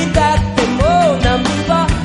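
Live funk band playing: drum kit hitting a steady beat under bass, electric guitar and keyboard, with a sliding melodic line on top.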